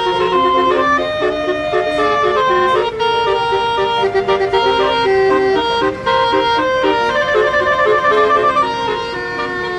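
Indonesian tour bus's basuri musical horn playing a tune, a steady run of held notes stepping from pitch to pitch with a reedy, clarinet-like tone.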